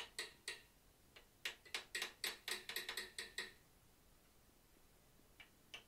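Light, quick hammer taps on a 5/8-inch curved chisel cutting a circle into hot steel for the nose of a forged bear's head, about five taps a second. The tapping stops for about two seconds after the middle and starts again near the end.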